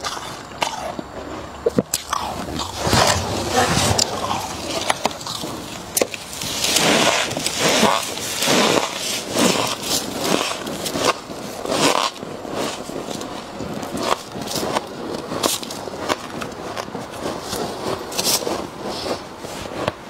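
Crisp freezer frost crunched between the teeth in many close-miked bites, densest in the middle, with frost scraped off the freezer walls by hand.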